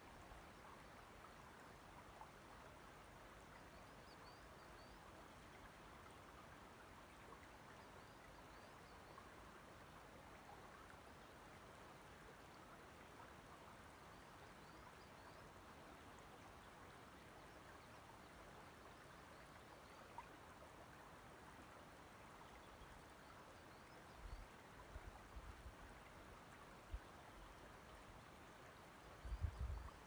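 Faint, steady lapping and trickling of shallow loch water over pebbles at the shoreline, with a few brief low rumbles near the end.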